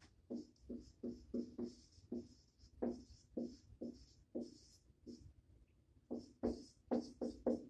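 Dry-erase marker squeaking on a whiteboard as a word is written: a series of short squeaky strokes, with a pause just after the middle and a quicker run of strokes near the end.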